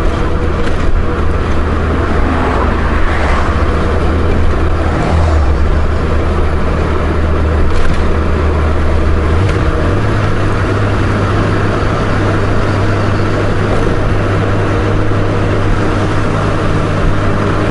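Honda Gold Wing GL1500 flat-six engine running steadily under way, heard from the bike over wind and road noise. The engine note steps up in pitch about ten seconds in.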